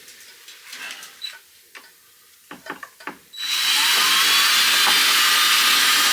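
A few light clicks and knocks, then, about three and a half seconds in, a sudden loud steady rush of water pouring into a container, its faint pitch slowly rising as the container fills.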